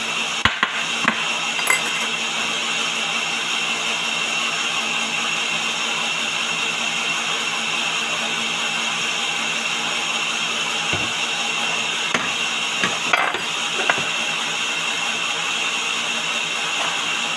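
Electric kitchen blender running steadily, blending sugar and water for a semolina cake batter. A few light knocks of bowls and utensils sound over it.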